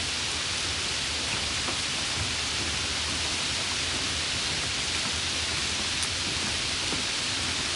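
A steady, even hiss with a few faint ticks scattered through it.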